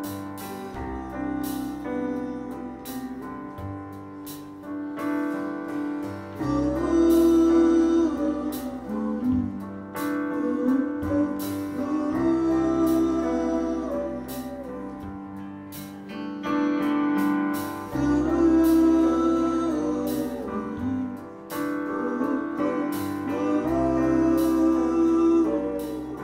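Band playing an instrumental passage of a slow song: sustained chords over bass notes and a steady beat, swelling louder several times.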